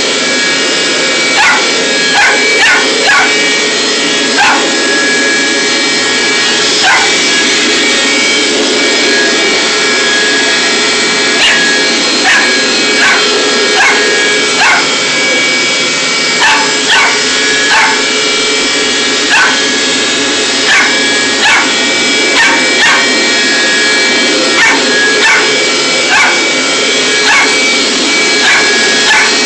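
Corgi puppy barking and yipping at a running carpet cleaner: short high yaps every second or so, some in quick pairs and triples, over the machine's steady motor drone.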